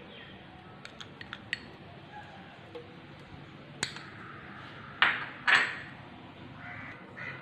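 A spatula clicking and clinking against a non-stick pot as a lump of ghee is scraped off into the oil, with two short, louder scraping swishes about five seconds in.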